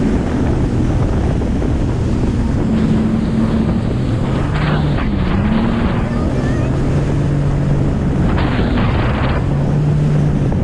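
Jet ski engine running at speed, its pitch drifting up and down, under heavy wind noise on the microphone. The water hisses and splashes against the hull, with louder bursts of spray about halfway through and again near the end.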